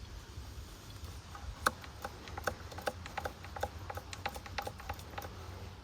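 An irregular run of a dozen or more light, sharp clicks and taps, starting about a second and a half in and stopping shortly before the end, over a steady low rumble.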